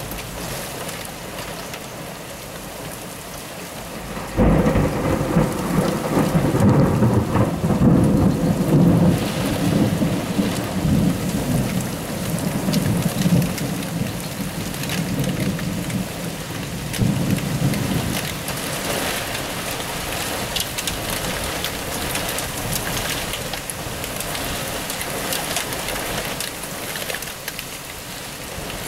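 Steady heavy rain, then a sudden thunder clap about four seconds in that rolls on as a deep rumble for over ten seconds before fading. The rain keeps falling afterwards, with scattered sharp patters of drops.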